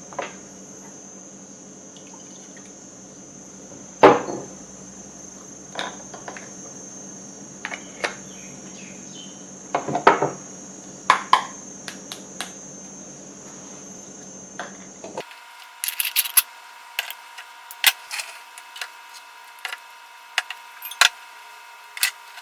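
Metal clinks and knocks of a moka pot and utensils being handled: scattered sharp ones through the first part, the loudest about 4 and 10 seconds in, then quicker, lighter clicks in the last part. A faint steady hum runs underneath.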